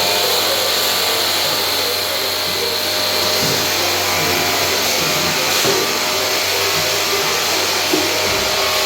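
Pressure washer running steadily: a constant hiss with a low motor hum underneath.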